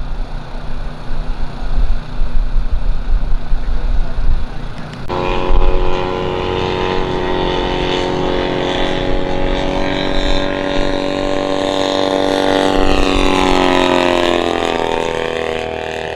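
Low rumble of wind on the microphone. About five seconds in, it gives way to the steady pitched drone of a radio-controlled scale biplane's engine, which falls in pitch near the end as the plane flies past.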